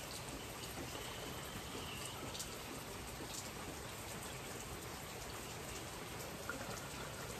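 Steady rain falling, with scattered light taps of raindrops.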